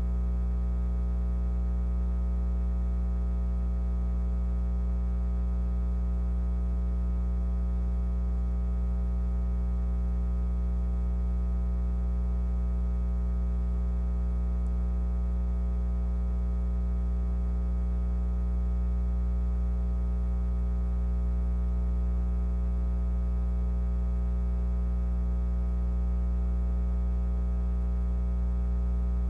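Steady low electrical hum with a buzzy row of overtones, unchanging throughout: mains hum in the audio feed.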